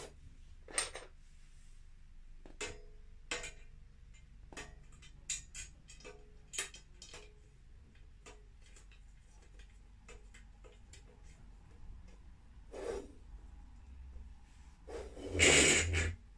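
The hollow white metal tubes of an IKEA Mulig clothes rack clicking and knocking against each other as the top rail is handled and fitted onto the frame. Near the end comes one louder scraping rattle of metal on metal.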